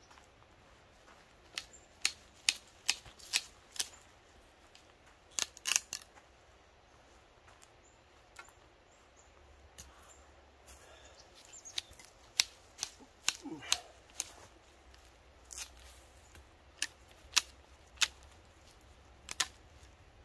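Stones and bricks clicking and knocking together as they are handled and set down: sharp, irregular knocks in small clusters, with a lull in the middle.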